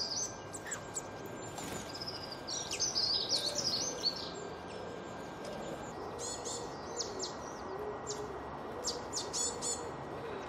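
Small songbirds chirping and twittering. Quick high warbling phrases come in the first few seconds, and short, sharp repeated notes follow in the second half.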